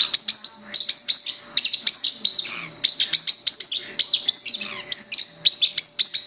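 Parrotlet giving a fast run of sharp, high-pitched chirps, several a second, many dropping quickly in pitch. The owner reads this chatter as the bird being angry.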